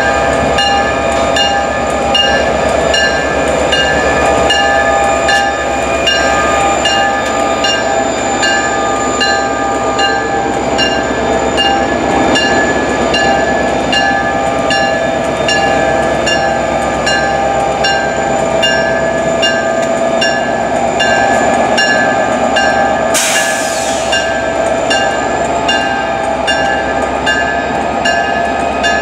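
EMD GP40PH-2 diesel locomotive moving slowly past with its engine running steadily and its bell ringing at about two strikes a second. A brief hiss comes about 23 seconds in.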